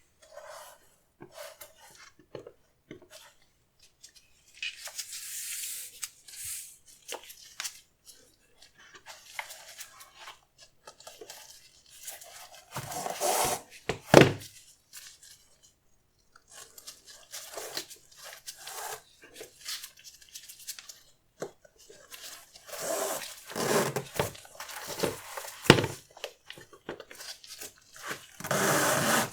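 Hands handling new FILA Envizion sneakers and their paper packaging: irregular rustling and crinkling with occasional sharp taps and clicks, busiest about halfway through and again near the end.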